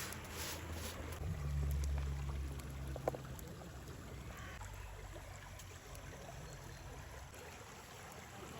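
Flowing river water, with a low rumble that swells for a couple of seconds and one sharp click about three seconds in.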